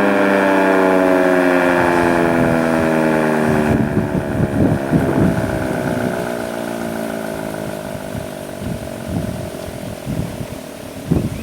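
Sentry 16V1T-B outdoor warning siren winding down after its attack cycle: a stack of tones sliding slowly lower in pitch and fading. This unit is heard as lower-pitched than usual. Wind gusts on the microphone from about four seconds in.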